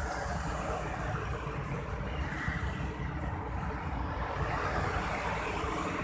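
Steady rumble of road traffic passing close by, with no distinct events.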